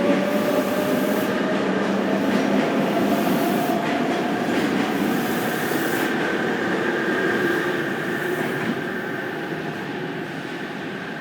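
Tobu Spacia limited express electric train running, a steady rumble of wheels on rail under a motor whine that rises slowly in pitch as the train picks up speed. The sound grows fainter near the end.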